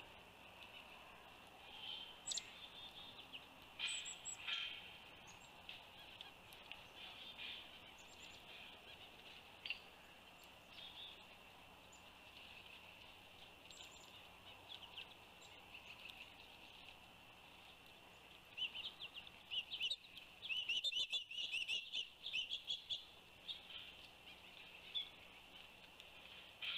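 Wild birds calling: scattered short chirps, then a busy flurry of rapid chirping about two-thirds of the way through.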